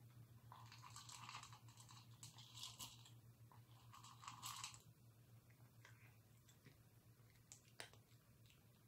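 A cat crunching dry food: quiet bursts of crunchy chewing in the first half, thinning to a few scattered crunches later.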